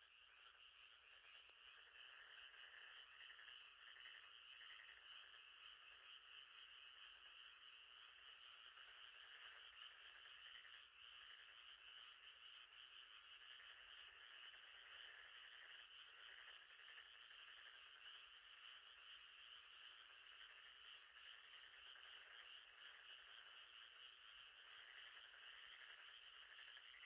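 Faint, steady night chorus of frogs: many callers trilling together in an unbroken, finely pulsing wash.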